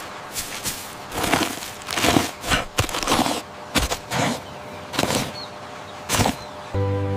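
A series of about a dozen short, irregular rustling scrapes, like a sheet of cardboard being handled. Near the end, music comes in with a held chord.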